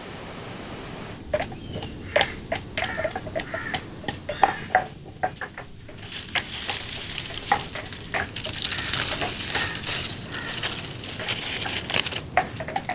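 Stone pestle pounding and grinding in a stone mortar, crushing ingredients by hand, with irregular sharp knocks. From about six seconds in, a steady hiss runs under the knocks.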